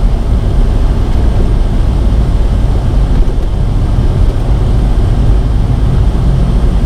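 Steady low rumble of road and engine noise inside the cabin of a 2002 Saturn SC2 while it is being driven.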